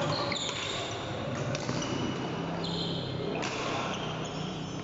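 Badminton rally: rackets hit the shuttlecock several times, and court shoes squeak briefly on the floor between the hits.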